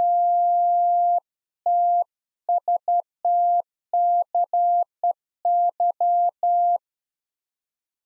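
Morse code sidetone from the AD5DZ keyer software's straight-key tone generator: one steady mid-pitched beep keyed on and off in dits and dahs of uneven length. It opens with a long held tone of about a second and stops about seven seconds in.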